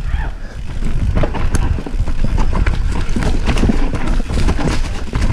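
Mountain bike descending a steep, rocky, rooty trail, its tyres and frame rattling and knocking over roots and rocks in a dense, continuous clatter over a low rumble, heard close up from the rider's body-mounted camera.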